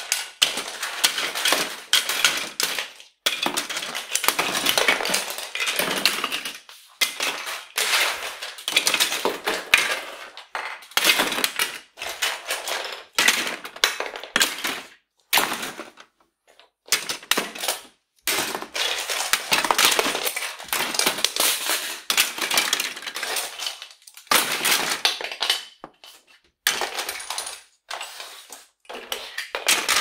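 Toys clattering and rattling as they are tossed and raked into a toy box, in irregular bursts of many quick knocks with short pauses between.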